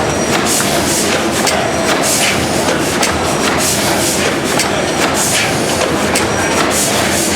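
Snow 600 HP twin tandem, double-acting natural-gas engine running slowly, with a beat about once a second over a steady mechanical clatter.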